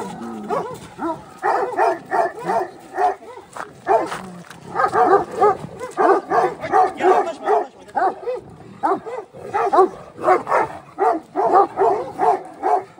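Kangal shepherd dogs barking in rapid, continuous volleys, several short barks a second, with a brief lull about three to four seconds in.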